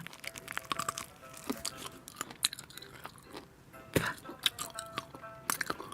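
A person chewing and crunching food close to the microphone: a scatter of small crisp crunches and mouth clicks. Faint music runs underneath.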